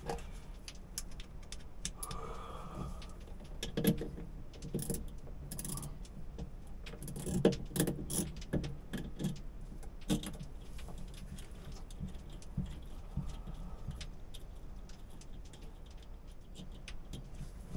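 Wires and metal crimp connectors being handled and pushed on at the windlass solenoid terminals: scattered light clicks, knocks and rustling over a low steady hum.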